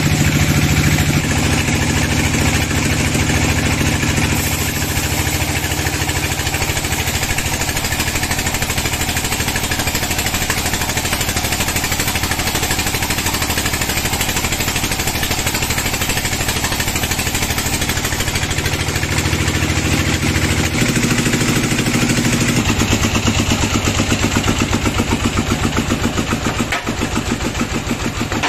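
Band sawmill running and ripping a dry teak slab, a loud steady machine drone with cutting noise over it. A little past two-thirds through the drive drops in pitch and settles into a regular pulsing beat as the load comes off.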